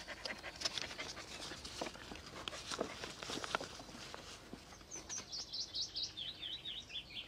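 Crisp crinkling and crackling of a torn paper note being handled and unfolded. Near the end, a small songbird sings a quick run of about a dozen short chirps that step down in pitch.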